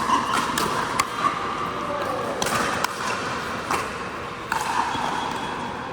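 Pickleball rally: paddles striking a hollow plastic ball and the ball bouncing on a hard indoor court, heard as a series of sharp pops at irregular intervals.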